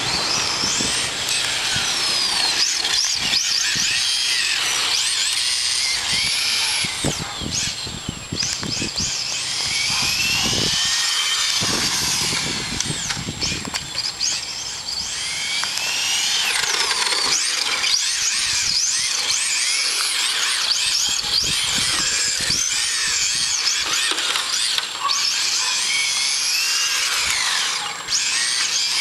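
Electric motor and gear drive of a Team Associated RC10 TC3 1/10-scale touring car whining, its pitch rising and falling again and again as the car speeds up and slows down.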